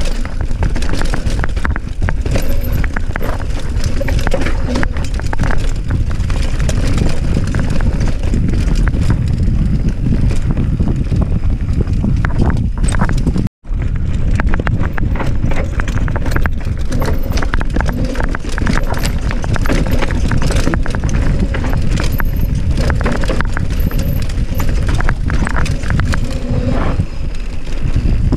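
Mountain bike ridden fast down a rocky trail: tyres and frame clattering over rocks in quick uneven knocks, over a heavy rumble on the microphone. The sound cuts out for an instant about halfway through.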